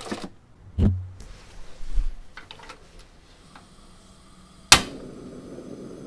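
Two dull knocks of a metal pot and its lid being handled, then a sharp click as the knob of an Iwatani portable butane stove is turned and its igniter fires. The gas burner lights and hisses steadily under the pot.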